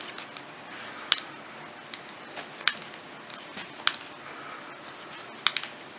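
Metal circular knitting needles clicking as stitches are knitted, with sharp, irregular clicks about once a second.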